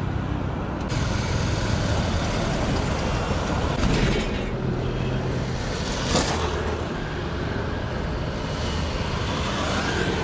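Light road traffic passing: motorcycle and auto-rickshaw engines with steady road noise, and one brief sharp knock about six seconds in.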